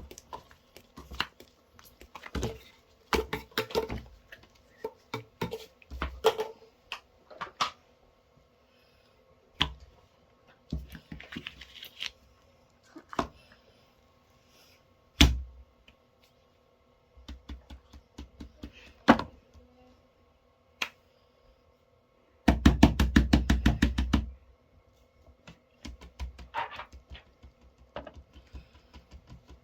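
Small fidget toys being handled: scattered taps and clicks of plastic and silicone, with one rapid run of about fifteen clicks lasting under two seconds about two-thirds of the way through.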